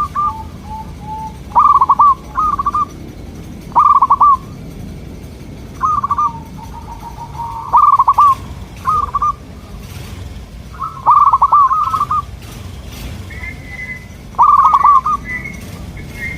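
Zebra doves cooing: short phrases of a few quick, fluty staccato notes, repeated about every one to two seconds. A fainter, higher chirping comes in near the end.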